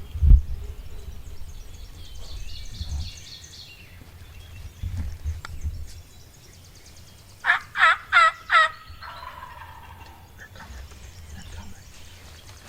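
Wild turkey gobbler gobbling once about halfway through: a fast rattle of four pulses, each falling in pitch. Songbirds sing faintly in the background, and there is a low thump near the start.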